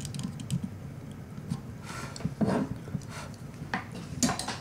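Light clicks, taps and rubbing from hands and tools while soldering a cable's shield to the sleeve of a 1/4-inch TRS plug, with a duller knock about two and a half seconds in and a few sharper clicks near the end.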